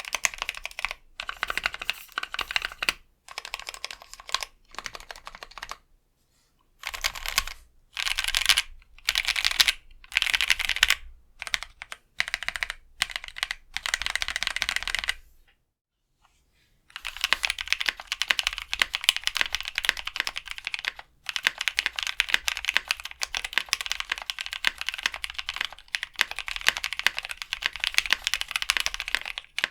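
Typing on a mechanical keyboard with lubed Novelkeys Cream linear switches on an aluminum plate, in runs of rapid keystrokes with short pauses. The first half is typed on Akko Neon keycaps; after a brief silence about halfway through, steadier fast typing follows on GMK keycaps, which in the reviewer's view soften the Creams' scratchiness better than the thinner Akko caps.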